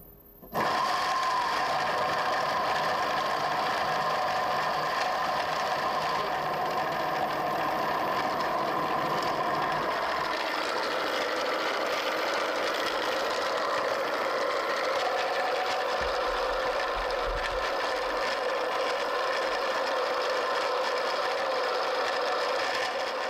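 Two 775 DC motors driving a 3D-printed twin-screw pump through plastic spur gears, running unloaded with no hoses fitted: a steady high whine with gear whirr that starts about half a second in.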